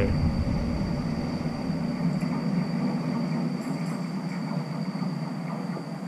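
Commuter train's low, steady rumble fading away as it leaves.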